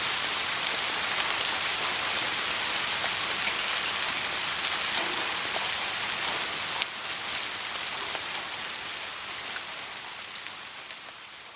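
Soft rain falling steadily: an even hiss of rain with scattered individual drop ticks. The level steps down slightly about seven seconds in, then fades out gradually near the end.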